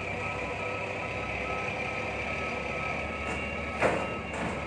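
Large forklift's engine running steadily while its reversing alarm beeps over and over as it backs up under load. A sharp knock sounds about four seconds in.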